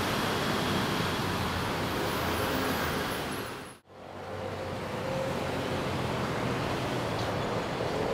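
Steady traffic noise from a major city road, briefly fading out and back in a little under four seconds in.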